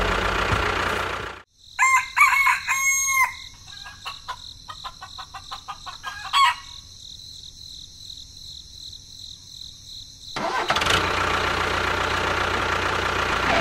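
Engine running, cut off about a second and a half in. A rooster then crows over a steady, high, shrill background, with another short call about six and a half seconds in. The engine sound comes back at about ten and a half seconds.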